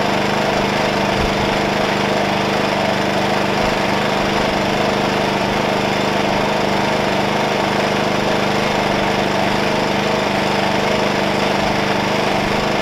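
WEN 56203i 2000-watt inverter generator running steadily at idle in eco mode with no load. Its small single-cylinder four-stroke engine, which the owner takes for a Zongshen 148F, holds a constant low speed.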